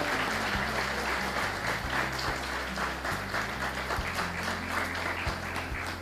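Audience applauding, a dense patter of many hands, over background music with steady low bass notes; the clapping eases off a little near the end.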